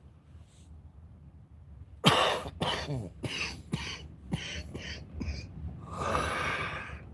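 A man coughing and clearing his throat several times in quick succession, starting about two seconds in.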